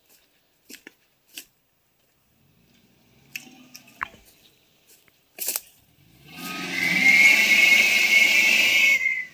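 A loud rush of spraying, splashing water for about three seconds, starting about six seconds in and cutting off sharply, with a steady whine through it. A few faint clicks and knocks come before it.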